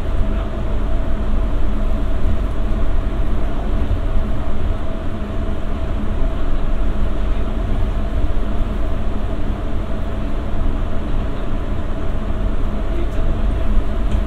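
Interior running noise of a Bombardier Innovia APM 100 rubber-tyred automated people mover cruising at steady speed: a loud, steady low rumble with a constant hum.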